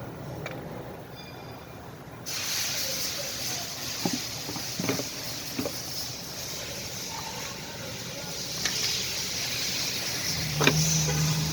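Workshop sounds: a steady hiss that starts abruptly a couple of seconds in, with a few sharp clicks of tools, and near the end a power tool's motor starts humming.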